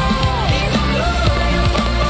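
Loud music with a fast, steady drum beat under a sustained lead melody that bends in pitch.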